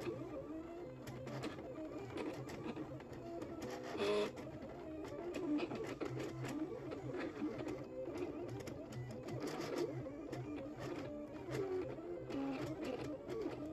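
Electronic craft cutting machine cutting a print-and-cut sheet, its motors whirring as the blade carriage and cutting mat move back and forth, with background music over it. A brief louder sound comes about four seconds in.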